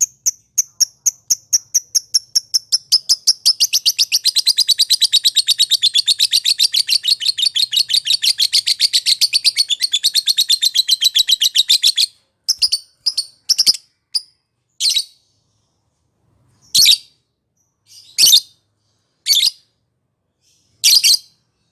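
Lovebird calling in a long run of rapid, high, ticking chirps that speed up into a dense chatter, then breaks off about halfway through into separate short calls with pauses between them.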